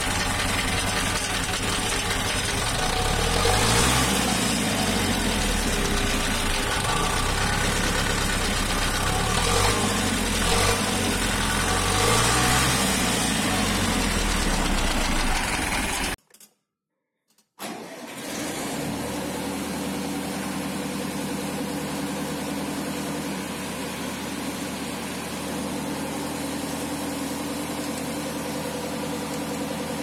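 Zetor tractor diesel engines running: the first is revved up and back down twice, its pitch rising and falling. After a brief silent cut, a Zetor 6211's diesel engine runs steadily at idle.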